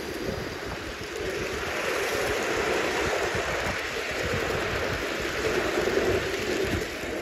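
Gauge 1 live-steam model of an SECR D class locomotive and its coaches running past on garden track: a steady rush of steam and wheels on rail that swells as the train comes close and eases off near the end.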